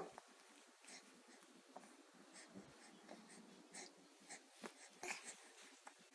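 Faint breathing and snuffles from a baby: a scatter of short, soft puffs over several seconds, the loudest about five seconds in.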